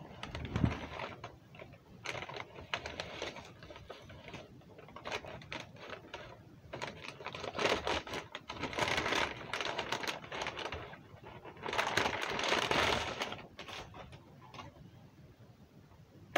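A paper bag being handled and crinkled: irregular rustles and taps, with two longer spells of loud crinkling, about seven seconds in and again about twelve seconds in.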